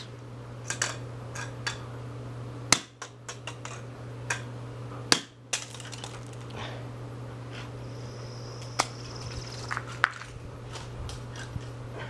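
Hammer blows on the plastic parts of a broken Revlon hairdryer laid on concrete: irregular sharp knocks, the loudest about three and five seconds in, over a steady low hum.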